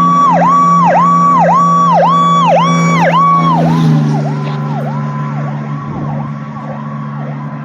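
Fire apparatus siren in a fast yelp, sweeping up and down about twice a second over a steady low drone. It grows fainter about four seconds in, as if pulling away.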